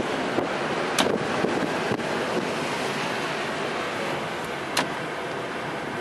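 Heavy storm surf breaking against a concrete seawall and boulders: a steady rush of water, with wind buffeting the microphone. A sharp click about a second in and another near the end.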